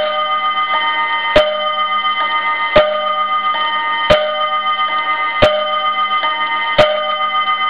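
Urgos mantel clock with a bim-bam chime striking its gong rods about six times, one strike roughly every 1.4 seconds. Each strike is left ringing, over the steady ticking of the movement.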